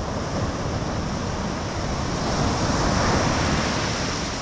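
Ocean surf washing up a sandy beach, with wind rumbling on the microphone; the wash swells about three seconds in, then eases.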